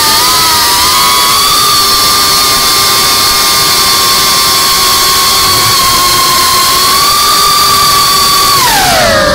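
Brushless motors of a Cinelog35 FPV drone whining at a steady high pitch under throttle, then the pitch falls sharply near the end as the throttle comes off.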